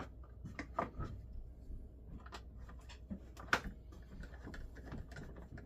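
Scattered light clicks and small knocks of hand tools and hardware being handled, with a hand ratchet clicking in quick runs in the second half as a long screw is driven.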